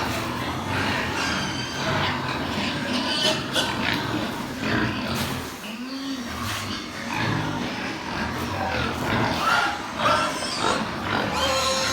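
Pigs grunting and squealing, with short calls following one another without a break.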